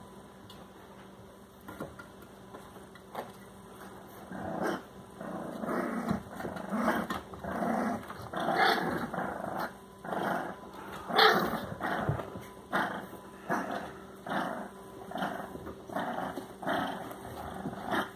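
Bulldog puppy growling while tugging and shaking a blanket in its teeth. The play growls start about four seconds in and come over and over as short rough bursts, a little more than one a second.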